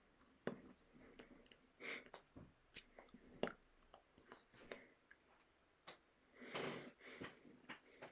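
Near silence with faint scattered mouth clicks and short breaths.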